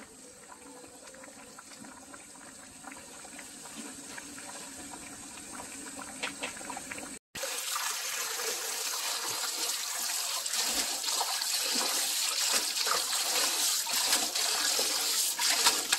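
Napa cabbage simmering in a pot of boiling water, a soft steady bubbling. About seven seconds in this gives way to a kitchen tap running hard into a stainless steel bowl, louder, with splashing as hands rinse and squeeze the blanched cabbage.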